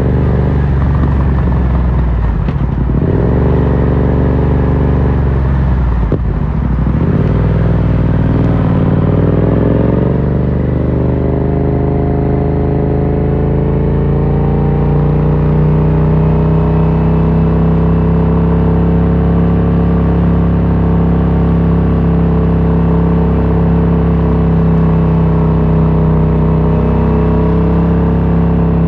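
Yamaha MT-07's parallel-twin engine running through an Akrapovic carbon full exhaust, under way. The note drops out briefly twice early on, then climbs steadily in pitch for several seconds as the bike accelerates, and settles into a steady cruise.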